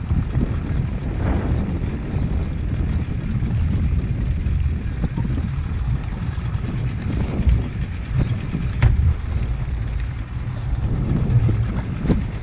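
A center-console skiff's engine running at idle, no-wake speed as the boat creeps in alongside a dock, with wind buffeting the microphone. A sharp knock about nine seconds in and another near the end.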